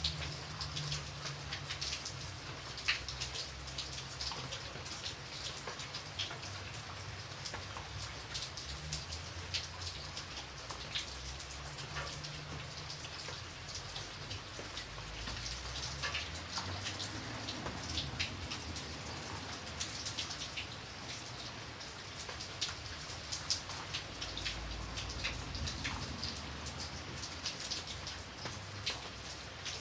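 Light rain falling steadily: an even hiss with many separate drops ticking on a surface.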